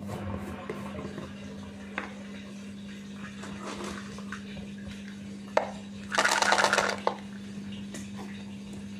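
Cat eating from a plastic bowl: scattered small clicks, then a loud rattling clatter for under a second about six seconds in, over a steady low hum.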